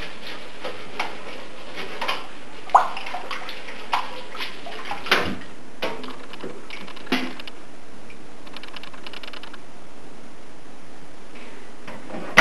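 Cookie sheet being cleaned in a sink of soaking water: water sloshing and splashing, with a few sharp knocks of the sheet about a second apart in the first half.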